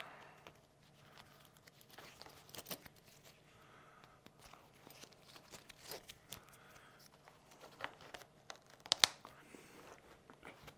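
Faint rustling and scattered small clicks of a Scorpion ADF9000 motorcycle helmet's chin strap being fastened, with a sharper click about nine seconds in.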